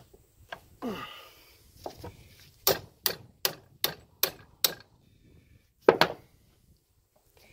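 Sharp metal knocks from work on a backhoe hydraulic cylinder clamped in a bench vise: six quick knocks about two and a half a second near the middle, then a single louder knock.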